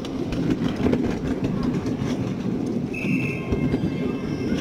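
Ride-on miniature railway train running along its track: a steady rumble of wheels on rail with scattered clicks over the rail joints, and a short high-pitched squeal about three seconds in.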